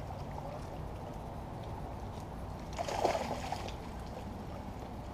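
A hooked largemouth bass thrashing at the water's surface while being played to the bank, with one splash about three seconds in, over a steady low rumble.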